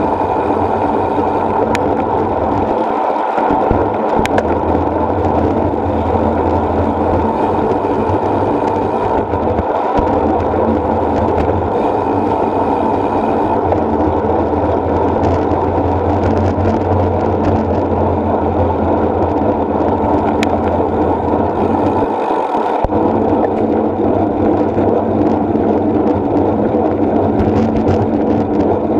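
Steady wind rush and road rumble picked up by a camera riding on a road bike, with the low rumble dropping out briefly twice.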